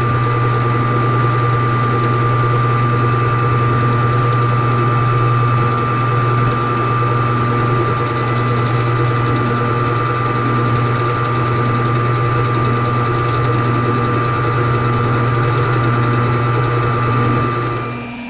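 Metal lathe running with its chuck spinning while turning down a metal part: a steady low hum with a thin, high, even whine over it. The sound drops away just before the end.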